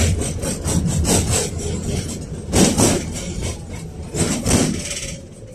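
Inside a KTM-5 (71-605A) tram under way: a low rumble from the running gear with irregular rasping, rattling strokes from the car body, getting quieter toward the end.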